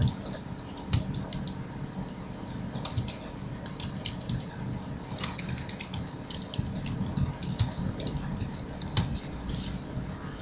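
Computer keyboard typing: irregular clusters of short keystroke clicks with brief pauses between them.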